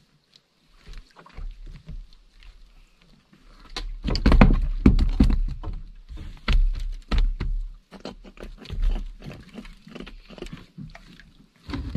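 Water splashing and slapping at the side of a small outrigger fishing boat, with irregular knocks, as a hooked fish is hand-lined up to the surface. The splashing comes thickest in a burst about four seconds in, then breaks into scattered smaller splashes and knocks.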